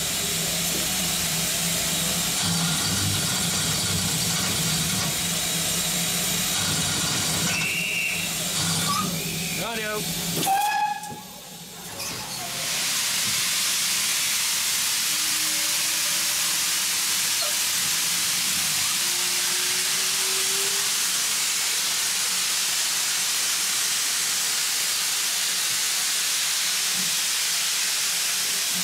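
Steam hissing steadily from GWR Modified Hall 4-6-0 steam locomotive No. 6990 standing at a platform. The first ten seconds hold steady cab noise with a low hum; after a short dip about eleven seconds in, a loud, even hiss of escaping steam takes over.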